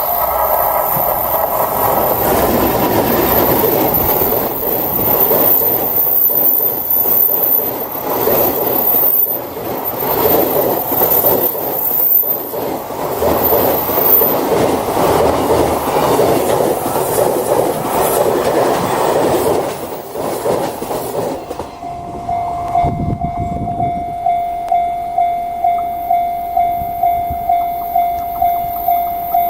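A freight train hauled by an EH500 electric locomotive passing close by, its wagon wheels clattering over the rails. As it clears, about two-thirds of the way in, the level crossing's warning bell is left ringing on its own in a steady beat of about two strikes a second.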